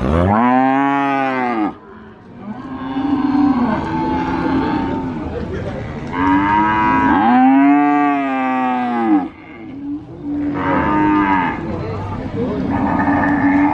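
Cattle mooing repeatedly. Two long, loud moos rise and fall in pitch, one at the start and one about six seconds in. Lower, quieter moos from other cattle fill the gaps between them.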